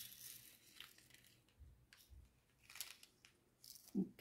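Faint, scattered clicks and rustles of small plastic storage containers and a plastic drill tray being handled, with diamond-painting drills being shifted about.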